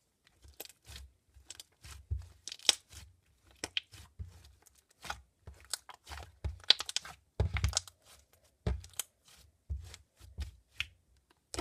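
Hands kneading and squeezing a stiff, not very stretchy slime, giving irregular squelches and many short crackling clicks with a few soft thuds as it is pressed and folded.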